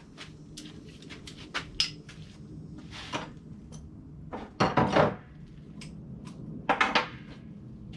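Metal hand tools clinking and clanking on engine bolts: sockets and wrenches tapping and rattling, with two louder clattering bursts about halfway through and near the end.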